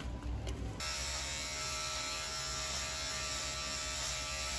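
Electric beard trimmer buzzing steadily as it cuts through a full beard. It comes in abruptly about a second in.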